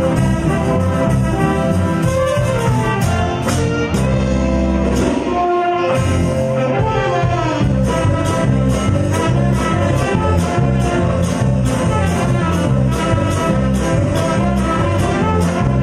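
Live Latin dance band playing, with saxophones carrying the melody over keyboard, guitar and drums on a steady beat. About four seconds in, the beat drops away for a held chord, then comes back.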